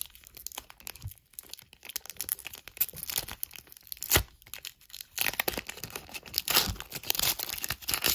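Crinkly wrapper of a Sage Hit Premier Draft football card pack being torn open and handled, a dense run of sharp crackles with one loud snap about four seconds in.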